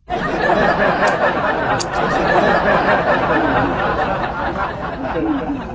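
Many overlapping voices chattering and laughing at once, starting abruptly and fading a little near the end.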